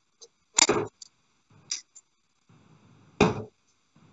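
Darts striking a Winmau Blade 5 bristle dartboard: two sharp thuds about two and a half seconds apart, with a few fainter clicks between them.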